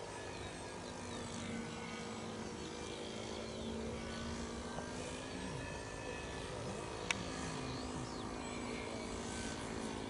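A radio-controlled model aircraft flying, its engine droning steadily with a slight drift in pitch. A single sharp click about seven seconds in.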